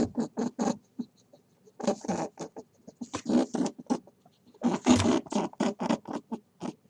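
An animal's rapid, chattering run of short, scratchy calls in three spells, with pauses about a second and about four seconds in.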